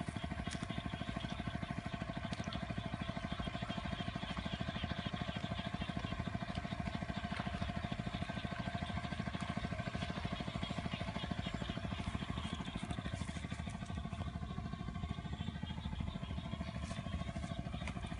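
A small engine running steadily at an even pulse, with faint voices.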